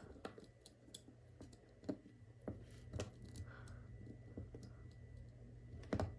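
Scattered small clicks and taps as smartphone parts and connectors are handled, over a faint steady hum.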